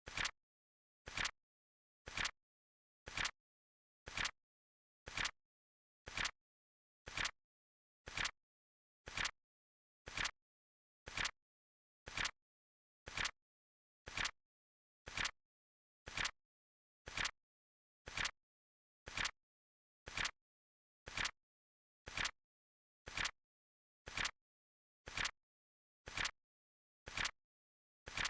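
Flip clock sound effect: a short, sharp flap click about once a second, evenly spaced, each with a soft lead-in and a louder snap, as the cards flip over with each passing second.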